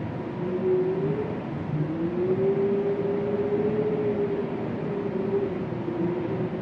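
Winter wind moaning: one wavering, hollow tone that slowly sinks and rises in pitch over a low, steady rush of wind.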